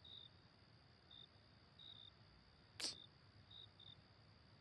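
Crickets chirping faintly, short chirps coming every half second to a second, with a single sharp click a little under three seconds in.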